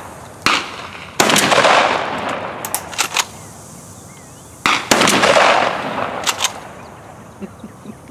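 Three loud 12-gauge shotgun shots, two close together near the start and one near the middle, each trailing off in a long outdoor echo, with a few fainter sharp cracks in between.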